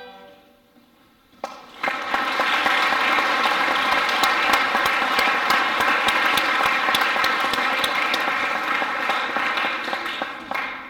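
Audience applause after a string quartet piece: a short quiet pause, then steady clapping that starts about two seconds in and tapers off near the end.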